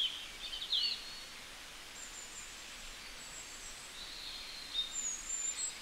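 Small birds chirping over faint outdoor background noise: scattered short, high calls, with one clear curling chirp about a second in and a few more near the end.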